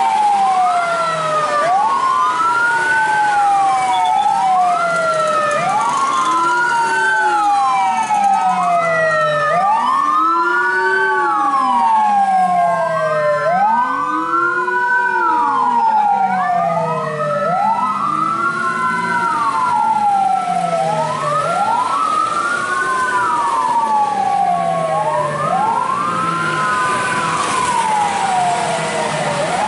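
Several rescue-vehicle sirens wailing at once, out of step with each other: each sweeps up quickly and falls away more slowly, about every two seconds, at different pitches.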